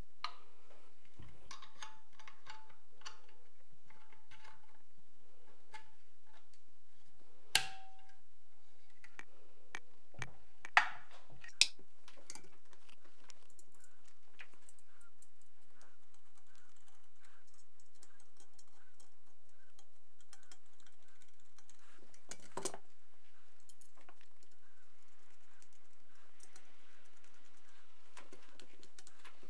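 Scattered light clicks and knocks of metal parts as a Vityaz-SN submachine gun is handled and its top rail fitted and screwed down, with a few sharper knocks about eight and eleven seconds in.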